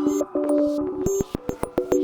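Electronic background music: held synthesizer notes over a clicking beat.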